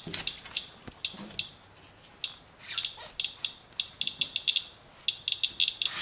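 Radalert Inspector Geiger counter chirping once for each count: short, high beeps at random, uneven intervals, sometimes several in quick bunches, and more of them toward the end. It is counting a rainwater wipe sample that reads about 0.2 mR/hr.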